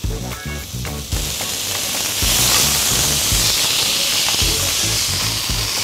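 Hot stainless pan with a seared beef tenderloin sizzling and hissing as rum deglazes it. The hiss swells about a second in and is louder still from about two seconds on, over background music.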